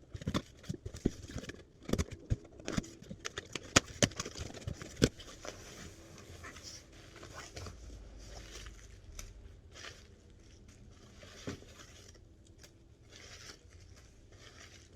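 Cardboard boxes and packing material being handled and opened. There are sharp knocks and scrapes in the first five seconds, then continuous rustling and crinkling of the packing.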